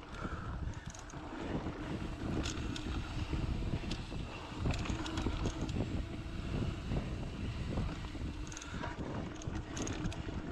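Mountain bike ridden fast along dirt singletrack. Wind rushes over the camera microphone and tyres rumble on the dirt, with frequent knocks and rattles from the bike over bumps.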